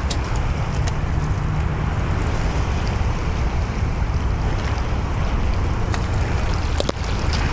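Wind buffeting the microphone in a steady low rumble, with the sea washing in behind it and a few faint clicks.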